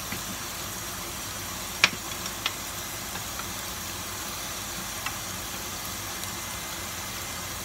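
Diced red onion sizzling steadily in oil in a nonstick pan on low heat, with a slotted spatula knocking against the pan a few times as it is stirred, the loudest knock about two seconds in.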